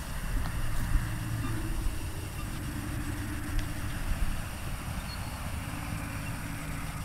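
An engine idling steadily, a low hum that shifts slightly in pitch, with a few dull thumps about one, two and four seconds in.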